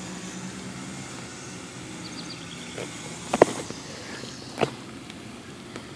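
Handling of a baitcasting reel while tangled line is picked and pulled loose from a backlash, heard as a few sharp clicks, the loudest about three and a half seconds in and another about a second later, over a steady background hiss.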